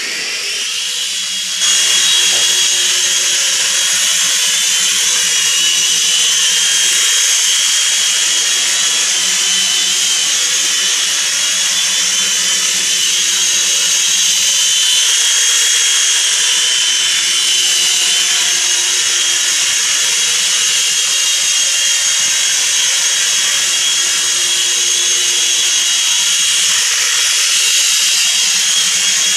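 Syma S026G mini Chinook RC helicopter in flight: its small electric motors and spinning rotors make a steady, high-pitched whine like a small power tool, getting louder a couple of seconds in.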